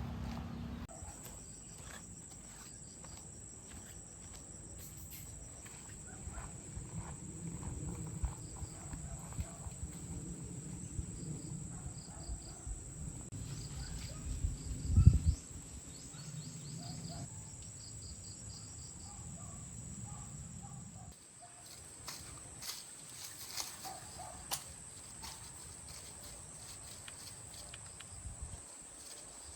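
Insects singing steadily as a high, even whine, over low scuffing and rumbling, with one loud thump about halfway through.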